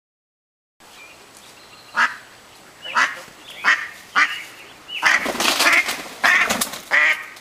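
Hen duck quacking loudly, separate quacks about a second apart starting a couple of seconds in, then a faster, busier run of quacks about five seconds in.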